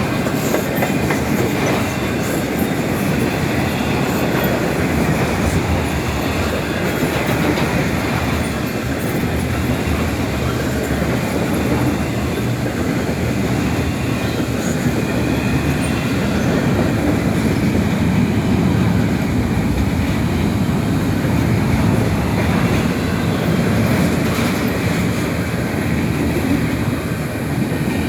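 CSX intermodal freight train's cars rolling steadily past, steel wheels running on the rails.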